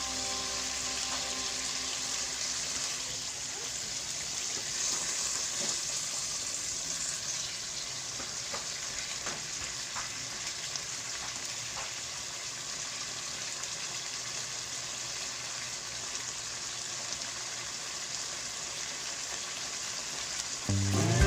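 Chicken livers sizzling in a pan of hot oil: a steady frying hiss with a few light clicks. Background music fades out at the start and comes back in near the end.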